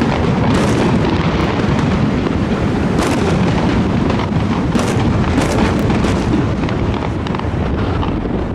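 Fireworks display: aerial shells bursting in quick succession, a dense, continuous barrage of booms and sharp bangs that eases slightly near the end.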